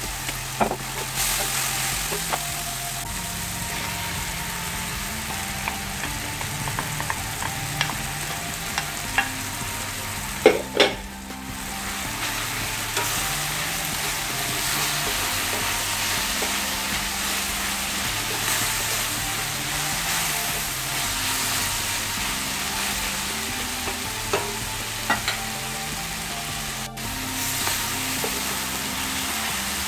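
Vegetables and fish sizzling in an oiled wok, stirred and scraped with a wooden spatula, with scattered clicks of the spatula against the pan. About ten seconds in there is a louder clatter and the sizzle briefly dips, as sliced eggplant goes into the pan.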